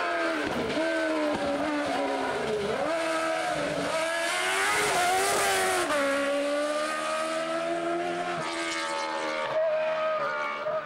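Racing car engine at high revs, its pitch dipping and climbing several times in the first seconds. It is loudest as the car passes close, about five seconds in, then settles to a steadier note as it pulls away up the hill.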